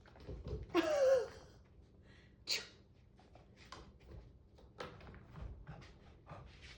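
A dog sneezing: short, sharp nasal bursts, the loudest and longest about a second in and another about two and a half seconds in, with fainter snuffs after.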